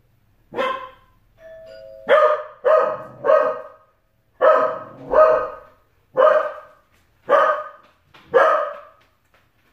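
A dog barking repeatedly, nine short loud barks. About a second and a half in, a faint two-note doorbell chime sounds, high then lower.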